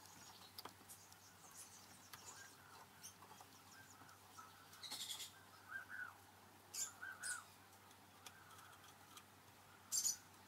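Faint clicks and scrapes of a hex key worked in the screws of a small home-built milling machine's metal table, with light high chirping squeaks between them. The clearest clicks come about five seconds in, twice around seven seconds, and a sharp one near the end.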